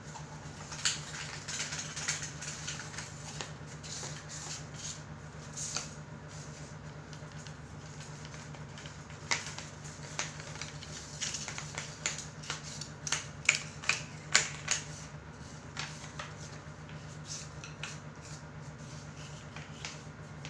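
Irregular small clicks and light knocks of objects being handled, a few louder ones close together about two-thirds of the way in, over a steady low hum.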